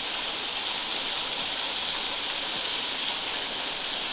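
Waterfall pouring from just behind its curtain of water: an even, steady hiss of falling water and spray.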